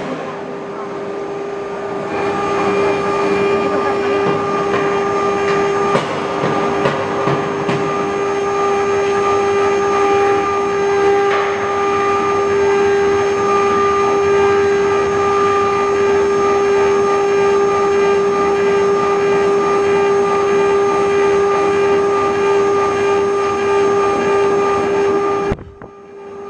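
A 6090 CNC router spindle running with a steady whine while its cutter engraves and cuts copper, with rough cutting noise underneath. The sound drops away briefly near the end, then comes back.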